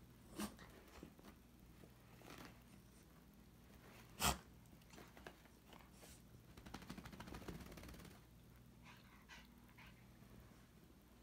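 A small dog playing on carpet, mostly faint: one short, sharp sound about four seconds in, the loudest, a smaller one near the start, and a stretch of scuffling from about six to eight seconds in.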